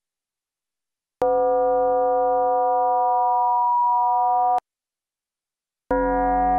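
Synthesized FM drone from an iPad modular synth patch of sine oscillators and filters: a steady stack of pitched tones starts abruptly about a second in and cuts off suddenly about three seconds later. It comes back about a second after that, fuller and brighter.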